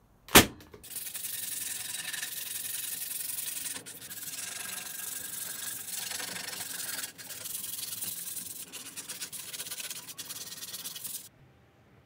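A single sharp knock, then wood being sanded: a steady scratchy rubbing for about ten seconds with a few brief breaks, stopping suddenly near the end.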